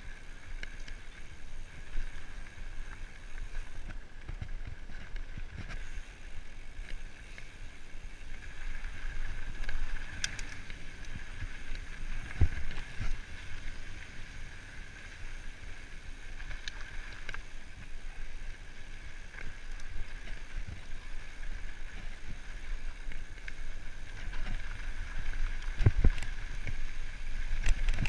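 Mountain bike riding fast down a dirt trail: steady tyre and frame noise with wind buffeting the microphone, and sharper knocks from bumps, loudest about twelve seconds in and near the end.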